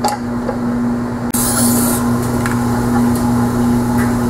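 Electric sharpening grinder running with a steady motor hum while an old Stanley plane blade, clamped in a jig, is ground on its stone wheel. About a second in there is a short hiss, and the running sound is a little louder after it.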